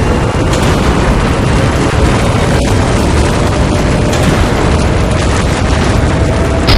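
Cartoon sound effect of a spaceship's engines: a loud, steady rumbling noise with no break.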